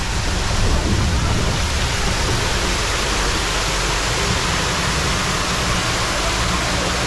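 Waterfall rushing: a steady, even wash of falling water with a low hum underneath.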